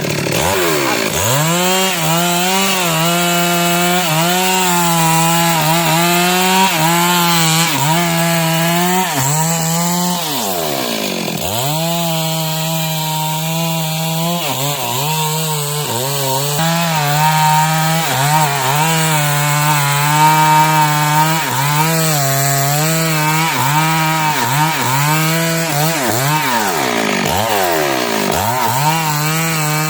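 STIHL MS 382 two-stroke chainsaw running at high revs while cutting wood. The engine pitch sags and climbs back several times as it loads up in the cut and frees, most clearly about ten seconds in and again near the end.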